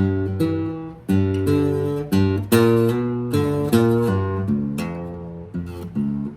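Guitar music: chords struck about once or twice a second, each ringing out and fading before the next.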